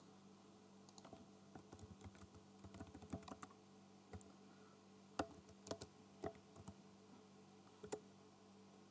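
Faint typing on a computer keyboard: scattered key clicks over several seconds as a short command is entered, over a faint steady hum.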